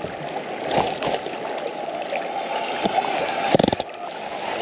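River water rushing and lapping, a steady rush throughout. About three and a half seconds in comes a brief rapid rattle of clicks, from gear being handled near the microphone.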